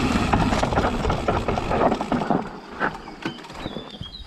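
Specialized Kenevo e-mountain bike descending a rough dirt trail: tyres running over the ground with the bike clattering and ticking. About two and a half seconds in, the noise drops to sparser clicks and knocks.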